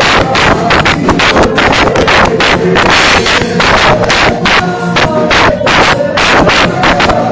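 Loud, fast dance music with a driving, steady beat, the kind played for worship dancing.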